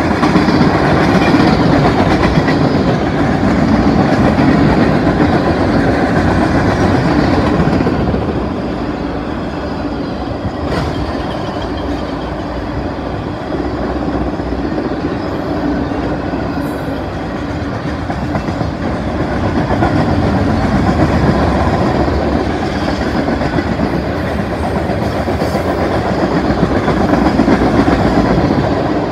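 Freight train of boxcars and tank cars rolling past close by: a loud, continuous rumble and rattle of steel wheels on the rails that swells and eases as the cars go by.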